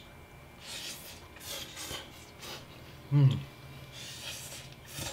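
Pad thai noodles being slurped and chewed: several short wet sucking hisses. About three seconds in comes a short, loud voiced 'mm' falling in pitch, trailing into a low hum.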